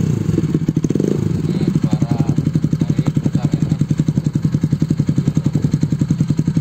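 Kawasaki Pulsar 200NS single-cylinder four-stroke engine idling just after start-up. It gives two short swells in the first second or so, then settles into a steady, even chug of rapid exhaust pulses.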